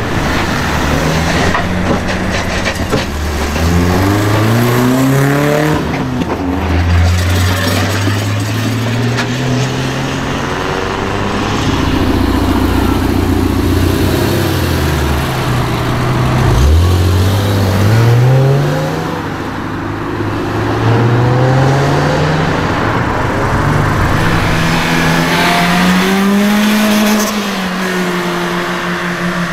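BMW E36 engines accelerating hard, several cars in turn. Each pull rises in pitch and drops back at the gear change.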